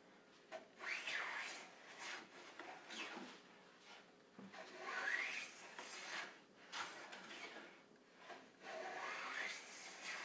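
Lie-Nielsen No. 7 jointer plane cutting shavings off a board edge: about five long rasping, swishing passes, roughly one every two seconds.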